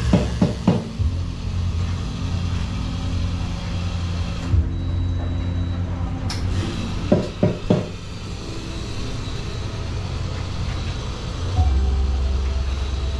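Café room noise: a steady low rumble and hum with faint background music. A few short knocks come near the start and again about halfway through.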